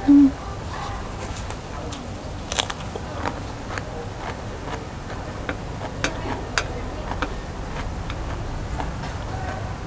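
Close-up eating sounds: chewing, with irregular sharp clicks of chopsticks against the steel tray of noodles. A short low hum at the very start is the loudest sound.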